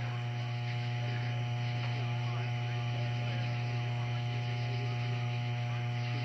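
A steady low electrical mains hum with a ladder of higher overtones, holding an even level throughout.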